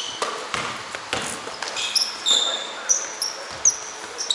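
Basketball shoes squeaking sharply on a hardwood court during play, mixed with the thuds of a ball bouncing. The squeaks come in short high bursts, several of them close together about two seconds in and again near the end.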